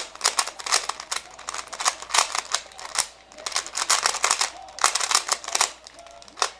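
A 3x3 speedcube being turned fast by hand: rapid clattering clicks of plastic layers snapping round, in bursts with short pauses between them.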